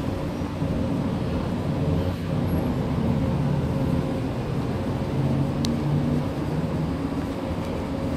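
Station escalator running, a steady low mechanical rumble and hum heard while riding down it.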